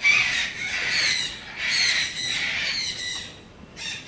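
Parrots squawking: a string of harsh, raspy calls in quick succession, the loudest at the very start, with a brief lull about three and a half seconds in.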